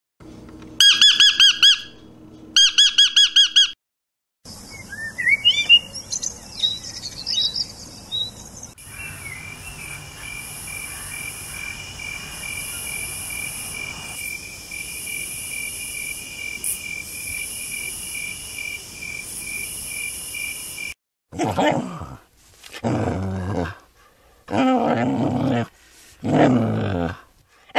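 A run of separate animal sounds. First two high, wavering horse whinnies, then bird chirps, then a long steady, pulsing high trill. Near the end comes a string of short, louder calls from a dog.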